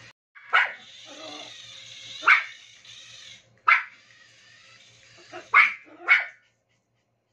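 Toy poodle barking in short, sharp barks, about five of them spaced a second or two apart, over a steady fainter high whine. The sound cuts off abruptly after about six and a half seconds.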